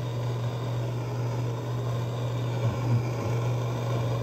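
MAP-gas torch flame burning with a steady low roar as it heats a chrome tub spout to break its corroded joint loose.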